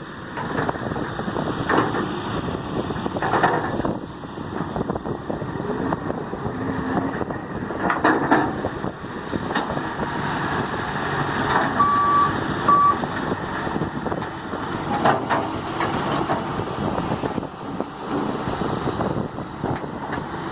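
John Deere 595D excavator's engine running steadily as the machine works, with occasional knocks. Two short beeps sound about halfway through.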